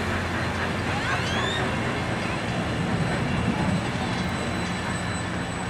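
Union Pacific passenger cars rolling past on the rails: a steady noise of steel wheels on track, easing slightly as the last car goes by near the end.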